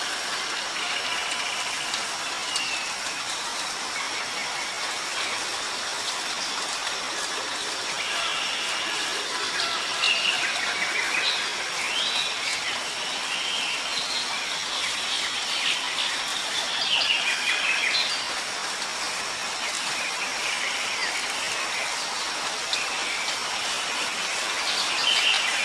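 Birds chirping and calling on and off over a steady outdoor hiss, with the calls busiest through the middle and again near the end.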